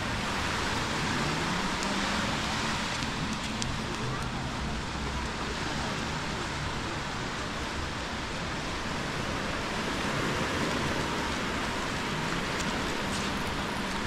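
Steady wash of small waves on a sandy beach.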